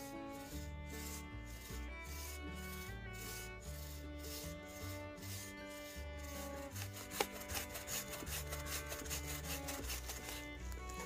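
Background music: held notes over a bass line that changes in steps, with a steady, scratchy percussive rhythm that quickens in the second half. One sharp click stands out about seven seconds in.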